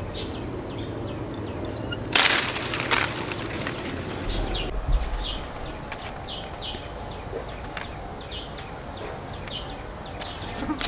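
Outdoor ambience with short, high bird chirps repeating over a steady background hiss, and one brief, loud rustling noise about two seconds in.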